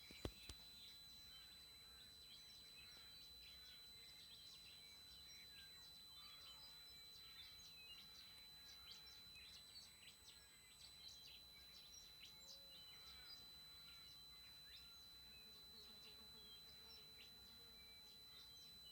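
TriStar TS-MPPT-60 solar charge controller squealing: a faint, steady, high-pitched whine held on one tone without a break. Birds chirp over it.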